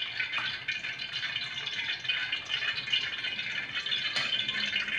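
Cooking oil heating in a wok on the stove, crackling with a steady stream of tiny ticks as it comes up to frying temperature.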